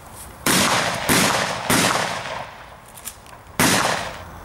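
Four shotgun shots: three in quick succession, a little over half a second apart, then a fourth after a pause of about two seconds, each dying away in a short echo.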